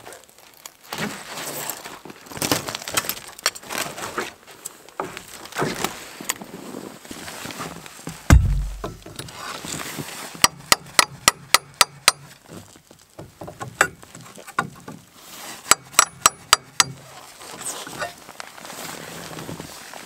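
Hammer striking a nail with sharp metallic taps, in two quick runs of about ten and then about eight blows, roughly five a second. Before them come crunching and rustling in snow and one heavy thump about eight seconds in.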